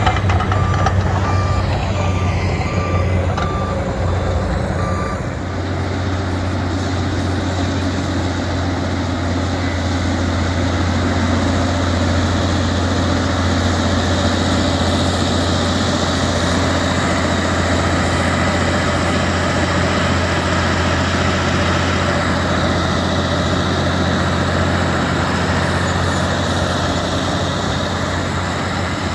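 Heavy earthmoving machine's diesel engine running steadily under work, with a reverse alarm beeping about twice a second for the first five seconds or so, then the engine alone.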